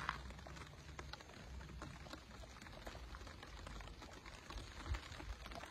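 Light rain just beginning: faint, scattered raindrops ticking at an irregular pace, a few stronger drops near the end.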